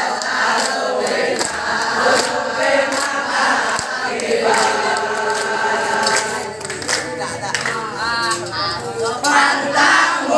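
Large group of teenage boys chanting a yel-yel (a group cheer) together in unison, with hand clapping.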